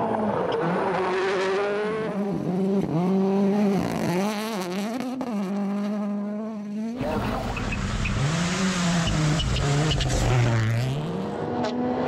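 Ford Puma Rally1 car's turbocharged four-cylinder engine revving hard, the pitch rising and dropping repeatedly through gear changes and lifts on a gravel stage. About seven seconds in, it gives way abruptly to a second Rally1 car's engine, deeper, swinging up and down as it passes the stage finish.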